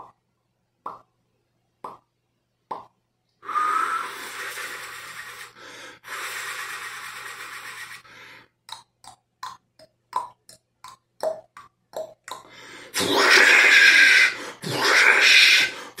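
A person imitating rain with mouth sounds. A few sparse clicks like single drops come first, then a steady hissing 'shhh' of falling rain in two stretches, then a quick run of clicks and pops, and a louder hiss near the end.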